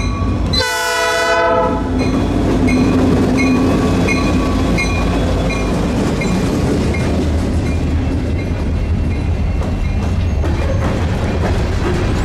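Norfolk Southern diesel locomotive sounds one horn blast of about a second, just after the start, then passes with its engine running. Covered hopper cars follow, rolling by with a steady rumble and regular clicking of the wheels.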